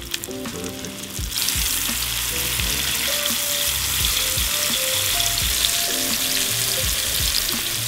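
Flour-dredged walleye fillets sizzling in hot oil in a frying pan. The sizzle jumps much louder about a second and a half in and stays strong and steady.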